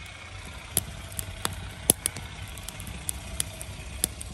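Wood fire burning in the firebox of a small raku kiln: irregular sharp crackles from the burning wood blocks, two or three a second, over a steady low rumble of flame.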